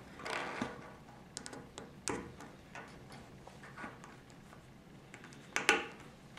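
Small plastic clicks and taps as Lego wheels with axle pins are handled and set down on a wooden tabletop, scattered irregularly, the loudest a sharp double click a little before the end.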